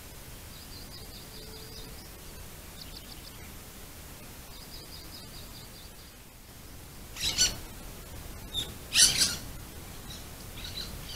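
Several small birds singing faint, rapid high trills in short runs through the first six seconds. Then come two loud flurries of wingbeats, about seven and nine seconds in, as ground doves flutter in.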